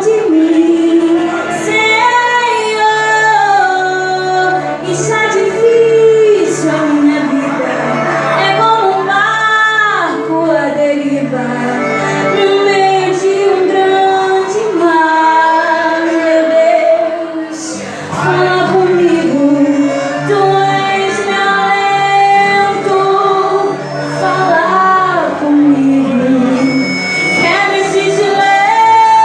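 Worship song with a woman singing lead over instrumental accompaniment.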